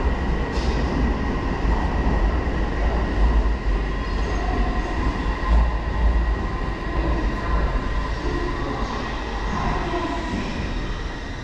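Train running through a station: a continuous deep rumble and rolling noise, with a thin steady high tone over it.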